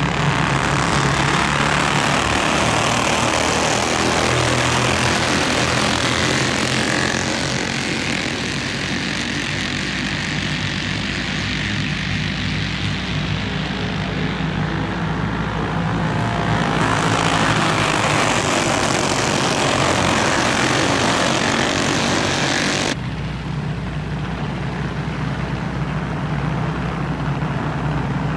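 Several dirt-kart flathead engines running together in a pack, a continuous drone that grows louder twice as the pack comes near and fades as it moves away; the high end drops off suddenly about 23 seconds in.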